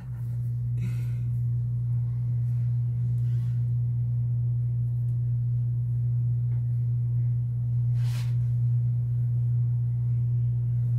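A loud, steady low hum on one unchanging pitch that starts suddenly.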